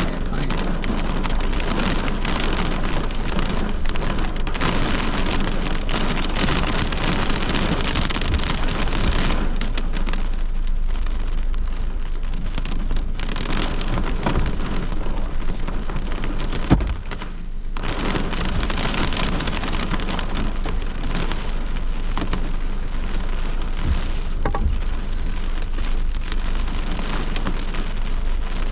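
Heavy rain pouring steadily in a severe thunderstorm, easing slightly for a moment in the middle, with one sharp crack about seventeen seconds in.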